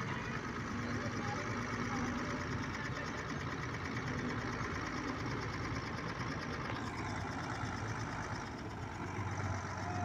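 Diesel engine of a Kuldeep Deluxe combine harvester running steadily as the machine drives past along the road.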